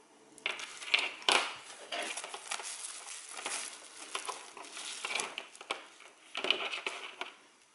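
Clear plastic packaging bag crinkling and rustling as it is handled, in a run of sharp crackles that starts about half a second in and dies away near the end.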